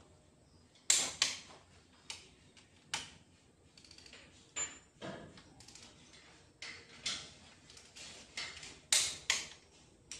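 Metal tools and engine parts clinking and knocking as they are handled during diesel engine assembly: about a dozen irregular sharp clinks, the loudest near the start and near the end.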